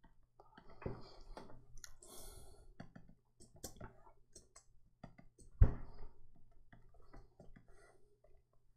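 Scattered clicks and light knocks from a computer mouse and keyboard being worked, the loudest a single sharp knock about five and a half seconds in, over a faint low hum.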